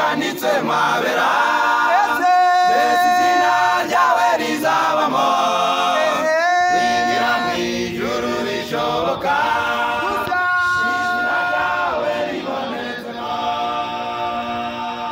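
A choir singing in harmony, several voices together in a moving melody, settling into a long held chord near the end.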